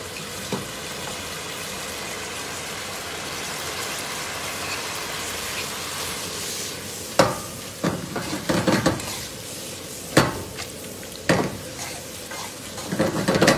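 Spaghetti and potato chunks sizzling in a pan of starchy pasta water while a metal fork stirs and mashes the potatoes, working the starch out to make the sauce creamy. From about halfway there are several sharp knocks and scrapes of the fork against the pan.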